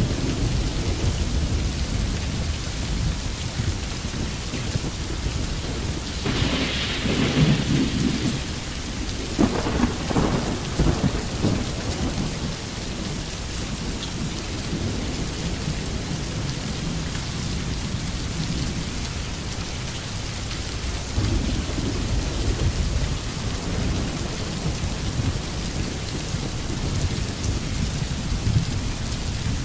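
Steady rain with rolling thunder, the loudest rumbles coming about six seconds in and again around ten seconds.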